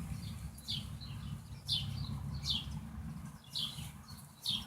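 A bird chirping over and over, short high chirps that fall in pitch, about one a second, over a steady low rumble.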